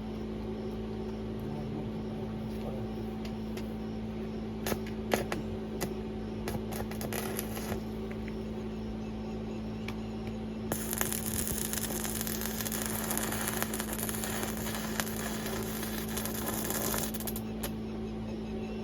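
Electric arc welding: a steady electrical hum, a few sharp ticks between about five and eight seconds in, then about six seconds of even arc hiss that starts abruptly about eleven seconds in and cuts off.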